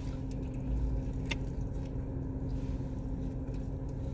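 Steady low hum of a car's idling engine, heard from inside the cabin, with a single sharp click about a second in.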